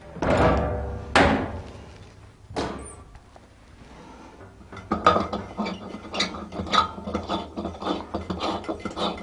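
A few ringing metallic knocks as the popcorn machine's cabinet is handled, then, from about five seconds in, a rapid gritty scraping and clicking as a heat-lamp bulb is screwed into its socket.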